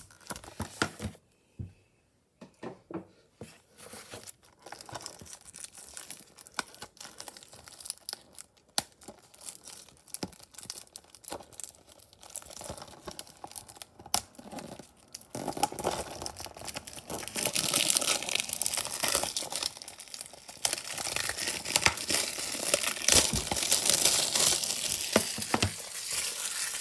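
Plastic shrink wrap being torn and peeled off a Blu-ray case: scattered crinkles and scratches at first, then louder, continuous crinkling and tearing from about halfway through.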